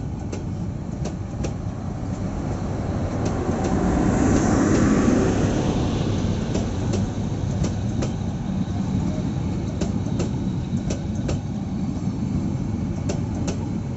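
New Inka passenger coaches rolling slowly past on the rails: a steady rumble of wheels on track, with scattered sharp clicks. It swells louder about four to six seconds in.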